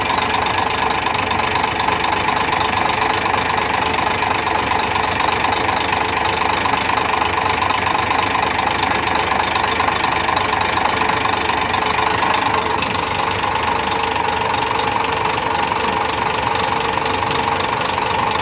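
Dump truck's diesel engine idling with a steady knock while it is tested cylinder by cylinder, each injector cut out in turn, to find the cylinder behind the knocking and low power.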